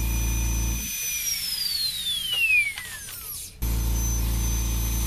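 Small rotary carving tool with a burr, running at speed with a high steady whine. About a second in it is switched off and the whine falls steadily in pitch as it spins down; a little past halfway it is switched back on and comes straight back to full speed.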